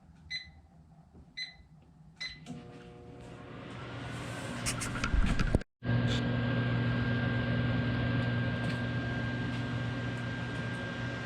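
Microwave oven keypad beeping three times, then the microwave starting and running with a steady hum and fan noise. A few loud knocks come just before a split-second dropout about halfway, after which the hum runs on.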